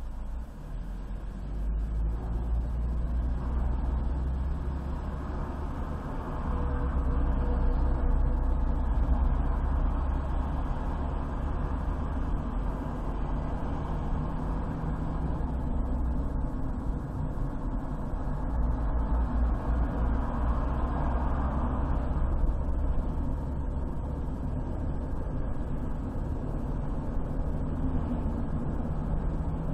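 Car driving along a highway: a steady rumble of engine and tyre road noise, swelling a little about a quarter of the way in and again past the middle.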